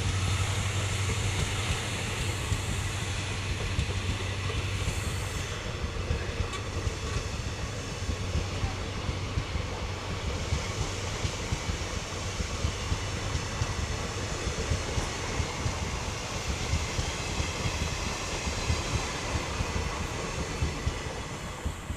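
WDG-4 diesel locomotive's 16-cylinder two-stroke engine giving a low, steady hum that fades over the first several seconds. After that comes a steady rolling rumble of train wheels, with many short clicks of wheels over rail joints, slowly getting quieter.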